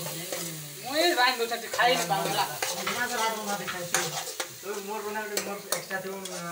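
A steel spoon stirs and scrapes thick curry in an aluminium kadai, clinking against the pan several times, while the gravy sizzles as it fries.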